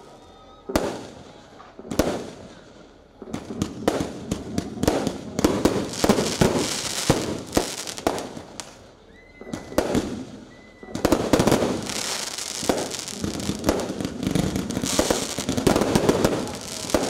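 Fireworks display: a string of sharp bangs from shells launching and bursting, with crackling sparks between them. From about 11 seconds in it thickens into a dense, nearly continuous barrage of bangs and crackle.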